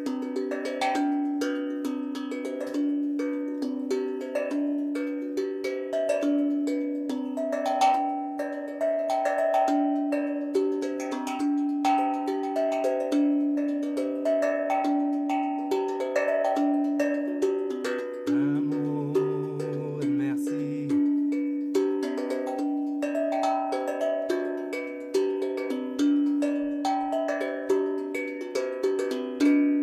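Steel tongue drum tuned to 432 Hz, played by hand: a continuous, flowing melody of ringing metal notes, with one low note struck again and again. Partway through, a deeper tone sounds for about two seconds.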